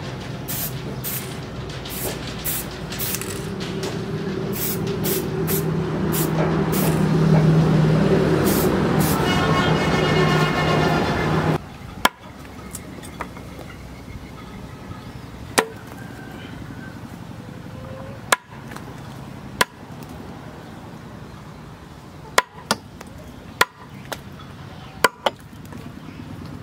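An aerosol spray can hissing onto a cleaver blade, growing louder, then stopping abruptly about eleven seconds in. After that, about ten sharp, separate chops, irregularly spaced, as a small cleaver cuts through a green stick into a wooden plank.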